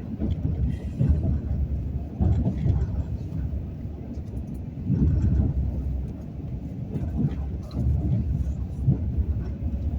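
Low, uneven rumble of a moving passenger train, heard from on board.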